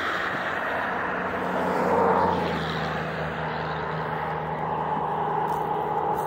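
Road traffic going by, one vehicle swelling and fading about two seconds in, over a steady low engine hum.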